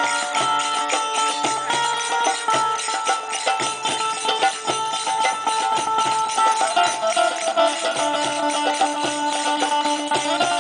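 Live traditional-style music: a melody instrument holding long notes over busy hand percussion with jingling metal. The held notes move to a lower pitch about seven seconds in.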